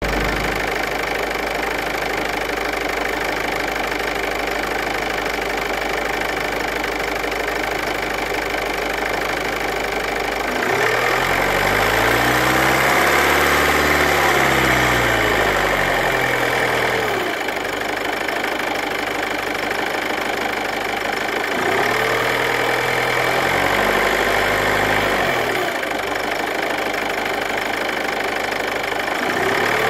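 Ford Kuga Mk2 180PS engine idling, then revved twice to about 1600 rpm, the pitch rising and falling each time; a third rev begins right at the end. The engine has a rattle noise that the owner is trying to capture.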